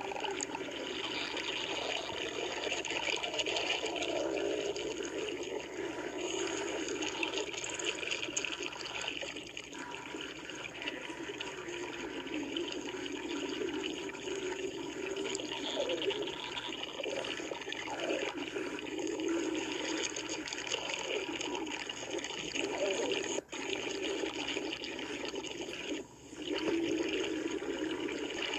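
Continuous wet gurgling and sloshing from a person's stomach, with a few short gliding squeaks around the middle. The sound cuts out briefly twice near the end.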